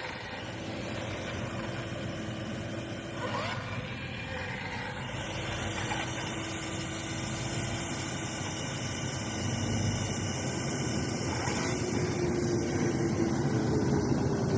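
Remote-controlled excavator's motor running steadily with a whine, which rises slightly in pitch about three quarters of the way through.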